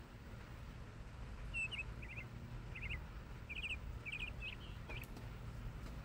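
A small songbird chirping: short groups of two to four quick, high notes, repeated from about a second and a half in until near the end, over a steady low background rumble.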